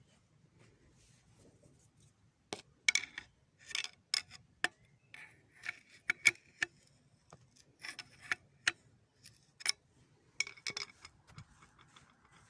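Irregular sharp metallic clicks and short scrapes, a dozen or so, each with a brief ring, starting a couple of seconds in and stopping shortly before the end.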